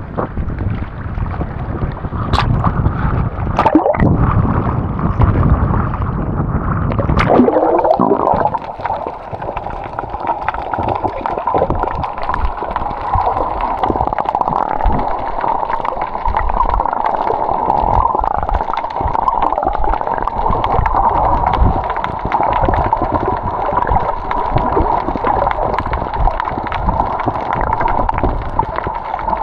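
Loud rushing noise for the first seven seconds or so, then water gurgling and sloshing right at the microphone, with a steady hum beneath it.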